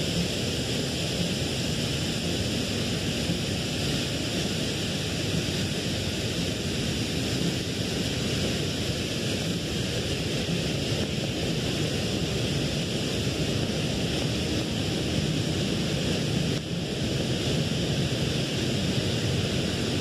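Steady rushing of water: the continuous roar of a nearby waterfall mixed with falling rain.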